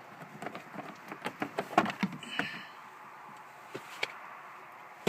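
Plastic interior trim panel of a 2004–2010 Toyota Sienna's rear liftgate being worked loose by hand: a run of small clicks and taps, a short scrape, a few light ticks, then a sharp snap at the very end.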